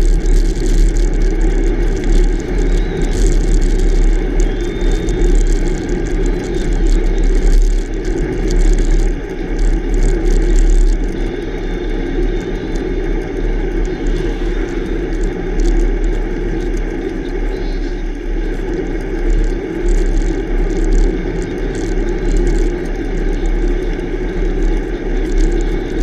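Wind buffeting the microphone of a bicycle-mounted camera over the steady rumble of the bike's tyres on rough asphalt, louder for about the first ten seconds and then easing a little.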